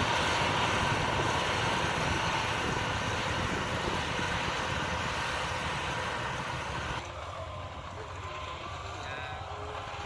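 Yanmar AW82V combine harvester running steadily as it cuts rice, a continuous engine and machinery noise mixed with open-air wind hiss. The sound drops abruptly to a quieter level about seven seconds in.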